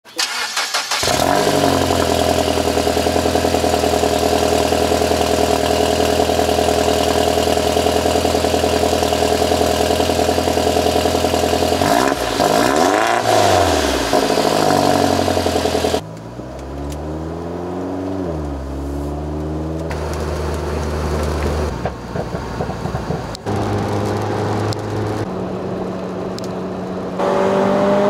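Car engine starting about a second in and running steadily, then revved up and back down twice around the middle.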